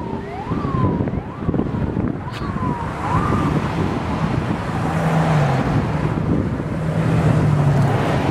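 Wind rushing over the microphone, mixed with interstate traffic noise. During the first few seconds a high siren-like tone sweeps down in pitch over and over, about every two-thirds of a second. A low steady hum comes in about halfway through.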